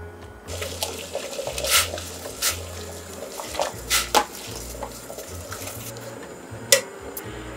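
Metal tongs clinking sharply against a stainless steel stockpot several times, the loudest near the end, as chicken is turned in boiling water, over a steady bubbling hiss of the boil.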